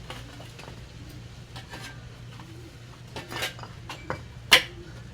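Hand tools clinking and scraping, with a burst of scraping a little past three seconds in and one sharp metallic clack about four and a half seconds in.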